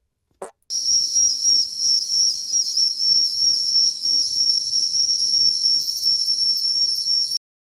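A steady high-pitched whistle over a hiss, starting just under a second in and cutting off suddenly near the end.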